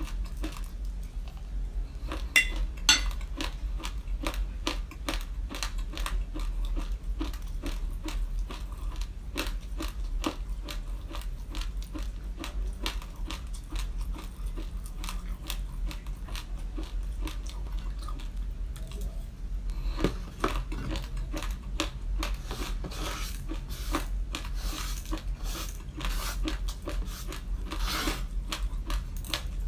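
Raw glutinous rice grains being bitten and chewed close to the microphone: a dense run of small, crisp crunches, with a few louder bites about three seconds in and again about twenty seconds in.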